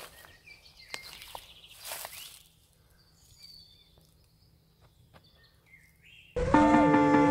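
Footsteps rustling through dry grass, then a quiet stretch with a few faint bird chirps. About six seconds in, music with keyboard notes starts suddenly and loudly.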